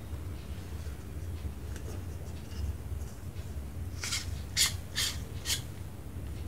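A low steady hum, with four short rubbing, scraping rustles in the second half as small objects are handled.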